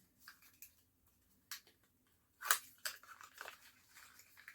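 Small items and their plastic packaging being handled: a few scattered clicks and crinkles, the loudest about two and a half seconds in.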